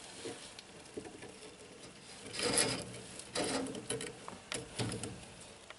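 Scratchy scraping and rustling as a bearded dragon is lifted off a wooden branch by hand: claws scrabbling on the wood and skin rubbing. It comes in a few short clusters from about two seconds in.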